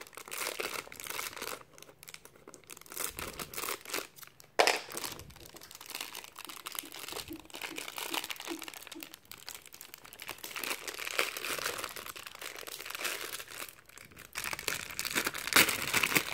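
Plastic foil wrapper crinkling and tearing as it is cut and pulled open by hand, with a sharp click about four and a half seconds in.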